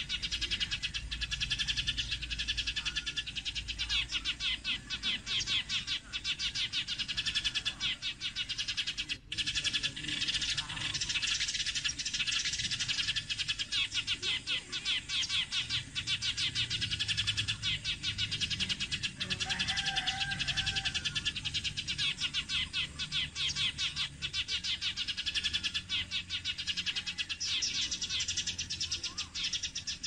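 A flock of sparrows chirping and chattering continuously, many rapid overlapping high chirps. A short, lower drawn-out call about two-thirds of the way in.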